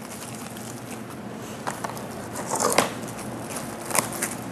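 Plastic cling wrap crinkling and rustling as it is pulled and pressed down over balls of bread dough, with louder crackles about two seconds in and again near the end.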